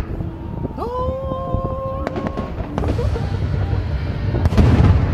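Fireworks going off: scattered pops and cracks, then a dense run of bangs and rumbling near the end, the loudest part. About a second in, a steady whistle-like tone holds for about a second.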